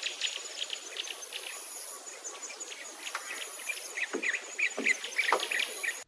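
Nature ambience of an insect's high, steady buzz coming and going in stretches of about a second, over many short bird chirps that grow louder near the end. It cuts off abruptly at the end.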